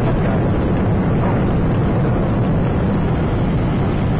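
Steady cabin noise of a Cessna Citation CJ3 in flight: the drone of its twin Williams FJ44 turbofans mixed with the rush of airflow, heaviest in the low range.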